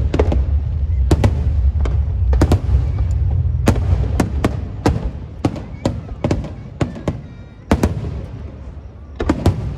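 Fireworks going off: sharp bangs and cracks in quick, irregular succession, a few per second, over a steady low rumble. The bangs thin out for a while in the second half, then pick up again near the end.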